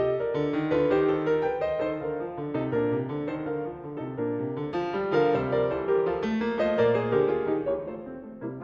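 Background piano music: a steady, flowing run of notes over a lower bass part.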